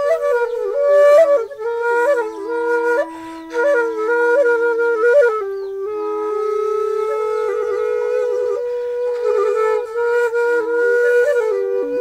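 Instrumental flute music: a solo melody with quick ornamented turns and grace notes, over a lower held note.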